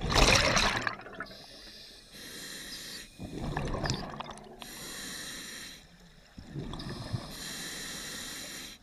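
Scuba diver breathing through an open-circuit regulator underwater: a rush of exhaled bubbles alternates with the hiss of the regulator on each inhalation, three breaths in a steady rhythm.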